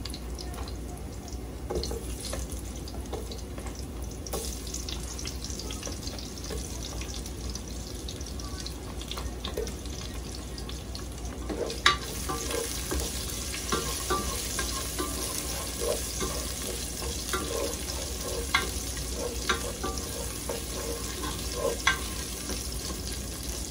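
Garlic frying in hot oil in a pot, with scattered clicks of a spoon against the pot. About halfway through, sliced onion drops in with a sharp clack. The sizzle then grows louder as the onion is stirred with a spoon tapping the pot.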